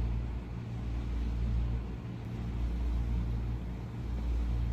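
A steady low rumble, like a running motor, with no distinct events.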